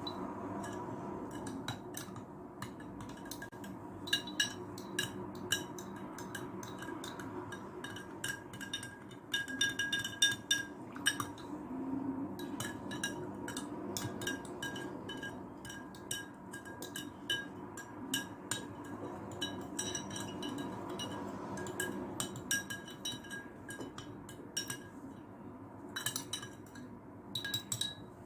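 Utensil clinking repeatedly against a glass, in irregular clusters of sharp clinks that each ring briefly, over a steady low background hum.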